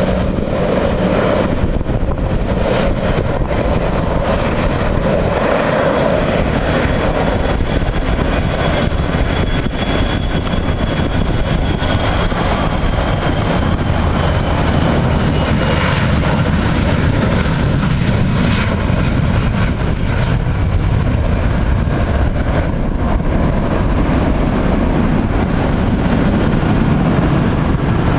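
Jet airliner engines running loud and steady at takeoff power: a Boeing 737-500's CFM56 turbofans on the takeoff roll and climb-out. A thin high whine in the middle slowly falls in pitch as the jet passes.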